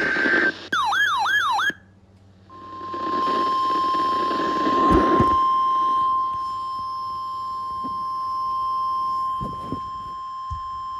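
The tail of a buzzing alert data burst and about a second of quick warbling electronic sweeps. After a brief silence, a steady single-pitch warning alarm tone, the 1050 Hz attention tone of NOAA Weather Radio, sounds for about nine seconds with static under its first few seconds.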